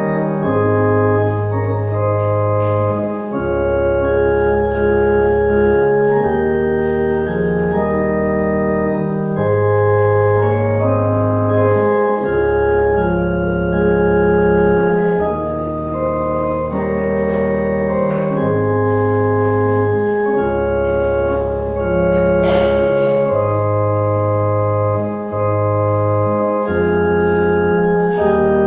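Organ playing slow, sustained chords over a held bass line that moves to a new note about every two seconds.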